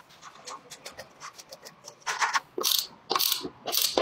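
Hand tools on a steel scooter wheel rim: light metal clicks as nuts are fitted, then four short rasping bursts from about two seconds in as a socket wrench turns the wheel nuts.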